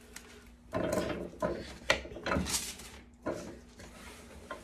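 A rigid plastic soap-tablet mold tapped a handful of times, top and bottom, against a plastic tub, knocking loose powder out of its holes, then set into a metal arbor press. The sound is a few dull knocks and rattles.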